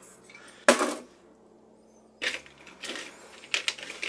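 Small steel parts of FELCO 7 secateurs clinking and knocking as they are handled and fitted back together: one sharp knock about a second in, then a few lighter clicks.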